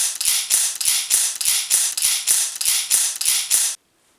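A fast, evenly spaced run of mechanical clicks, each with a short metallic rasp, about three a second, cutting off abruptly near the end.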